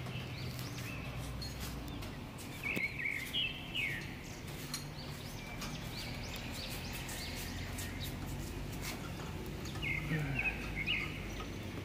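Small birds chirping in short quick calls, a cluster about three seconds in and another near the end, over a steady low background hum.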